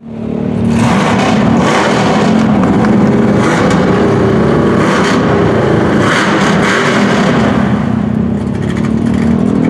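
Lifted Chevy Silverado mud truck's engine running loud and revving, its pitch rising and falling through several throttle surges.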